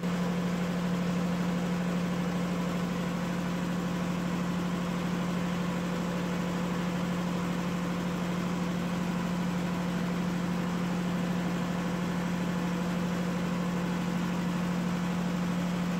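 Steady machine hum with one strong low tone, unchanging throughout.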